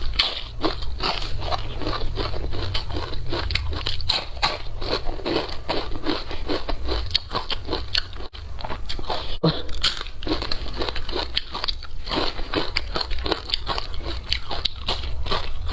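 Close-miked crunching and chewing of crispy fried fish: rapid, dense crunches with each bite and chew, briefly cut off twice around the middle.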